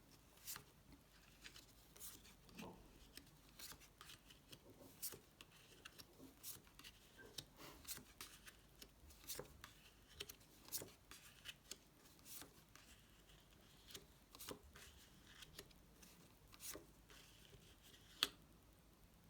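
Playing cards being shuffled and handled: faint, irregular flicks and taps.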